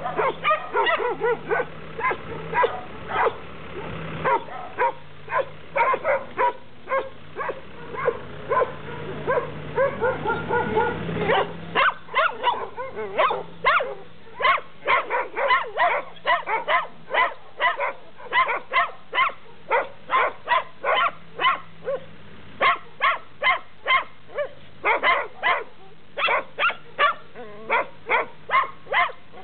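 Dogs barking continually, the barks overlapping densely for the first ten seconds or so, then a steady run of sharp single barks about two a second.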